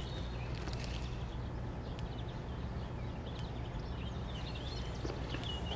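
Outdoor street ambience: a steady low rumble with small birds chirping now and then, mostly near the start and the end.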